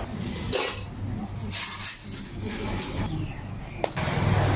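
A metal spoon clinking and scraping against a stainless steel milk pitcher while spooning milk foam onto a drink. A sharp plastic click follows a little before the end, as a plastic dome lid is pressed onto the cup.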